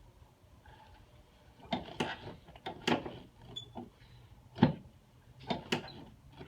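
A series of sharp knocks and clicks during a chiropractic adjustment on the treatment table, irregularly spaced, about eight in all. The loudest two come about two-thirds of the way in, a second apart.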